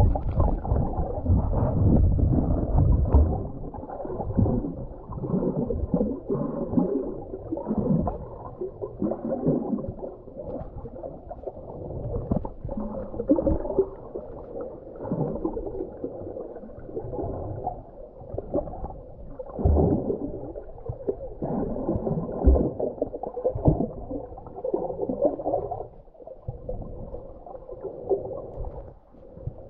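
Muffled sloshing and gurgling of water, heard through a camera's waterproof housing, rising and falling in loudness irregularly.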